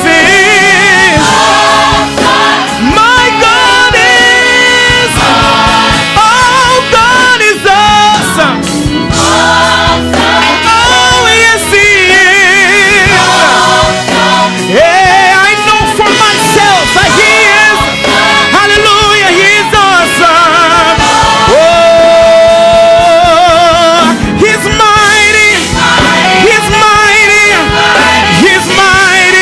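Gospel praise music: loud singing with vibrato, including a choir, over a full band.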